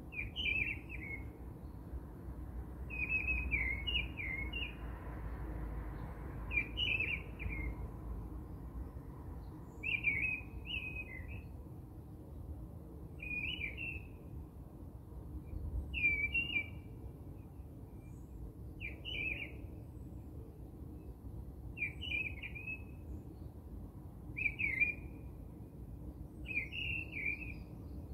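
A bird sings a short chirping phrase about every three seconds, over a steady low background rumble.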